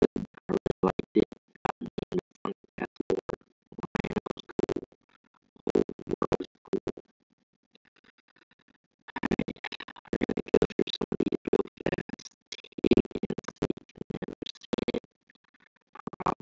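Background music that sounds choppy and stuttering, cutting in and out rapidly, and dropping out completely for about two seconds near the middle.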